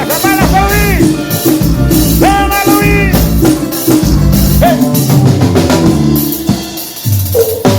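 Drum kit played along with a song: kick and snare strokes under a steady bass line and a bending melodic lead.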